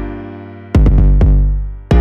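Background music: electronic keyboard chords over a steady drum-machine beat.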